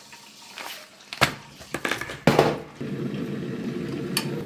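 Kitchen handling sounds as a glass French press is opened and ground coffee is spooned into it from a paper bag: a few sharp clicks and knocks. In the second half a steady low rushing sound runs under them and stops suddenly near the end.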